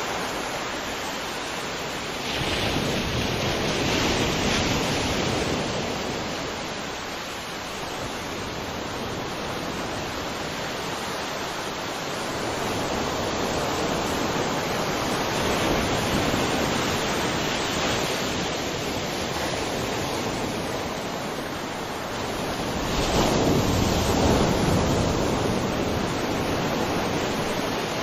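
Sea waves washing onto a shore: a continuous rush of surf that rises and falls, with three louder surges as waves break.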